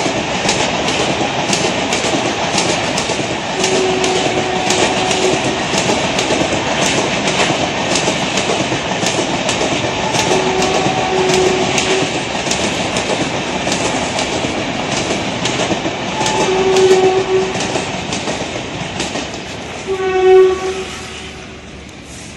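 Express train of LHB coaches passing at speed, wheels clattering steadily over the rail joints. A train horn sounds in several short blasts, the last and loudest about twenty seconds in, then the train noise fades.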